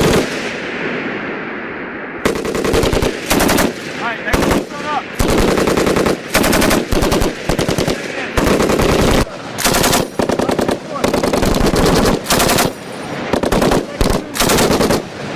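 Belt-fed machine guns firing short bursts one after another on a range. A first shot rings out and echoes away over about two seconds, then bursts follow almost without pause.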